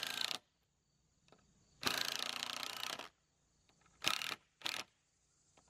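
Cordless impact driver driving a screw through metal plumber's tape into a wooden 4x4 leg, in separate runs: a brief one at the start, a longer run of about a second near two seconds in, then two short bursts around four seconds in.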